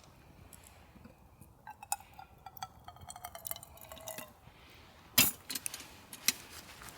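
Camp cookware clinking: light metal taps with a faint ringing tone over a couple of seconds, then a sharp knock about five seconds in.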